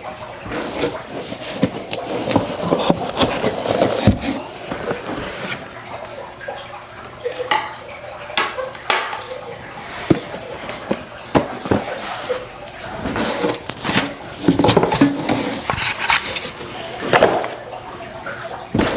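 Irregular knocks, clicks and clatter of the grow light stand's parts being handled and fitted together.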